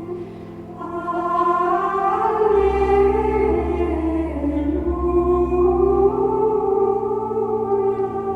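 Women's choir of Benedictine nuns singing Gregorian chant in Latin, a long unaccompanied-sounding line of held notes moving slowly between pitches.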